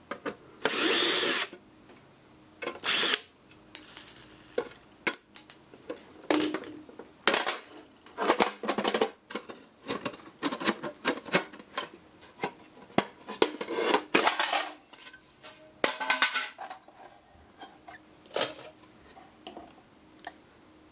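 A cordless drill-driver runs in short bursts, the longest about a second long near the start and a shorter one near three seconds, backing screws out of a metal electronics casing. This is followed by a string of short clicks, taps and knocks as the metal case is pulled apart and the circuit boards are handled.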